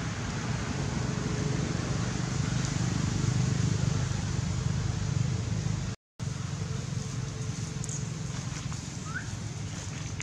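Steady low rumble and hiss of outdoor background noise, swelling about three seconds in and easing off again. It drops out for an instant about six seconds in, and a short rising chirp sounds about nine seconds in.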